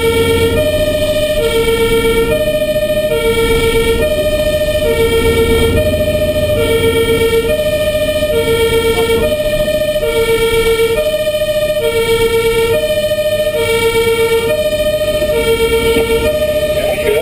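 German two-tone fire-engine siren (Martinshorn) on an LF 24 fire engine, heard from inside the cab, alternating steadily between a low and a higher tone, each held a little under a second. The truck's engine rumbles underneath, more strongly in the first few seconds.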